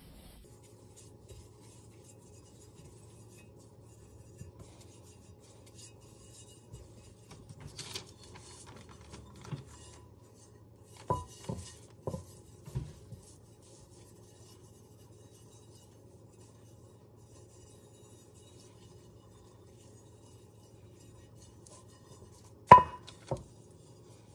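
Hands rubbing oil over a cast iron skillet: faint rubbing, with a few knocks of the heavy pan against the counter as it is shifted, about halfway through, and one sharp ringing clank of the pan near the end.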